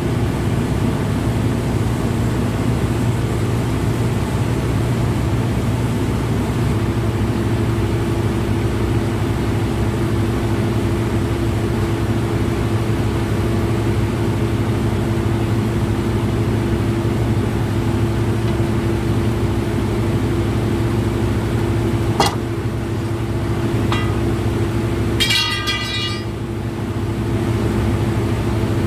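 Heavy diesel engine of a wheel loader running steadily, with a steady whine joining about seven seconds in. A sharp click about 22 seconds in and a short, higher-pitched tone a few seconds later.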